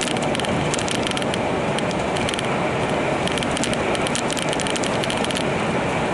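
Steady running noise inside a moving vehicle, with bursts of rapid clicking rattles at several points, busiest in the second half.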